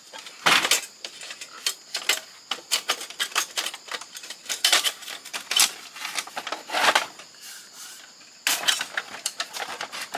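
Irregular clicks, knocks and clatter of small metal and plastic parts of an old Canon fax machine being taken apart and handled, with a few louder rattling bursts.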